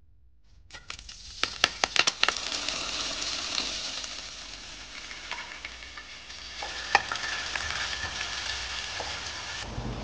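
Hot oil sizzling in a non-stick frying pan as chopped onion and green chilli fry in it. There is sharp popping and spitting for the first couple of seconds, then a steady sizzle with an occasional pop.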